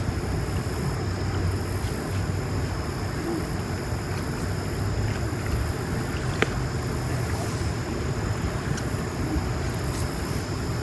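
Steady rushing of wind on the microphone, with a low rumble, and a single sharp click a little past the middle.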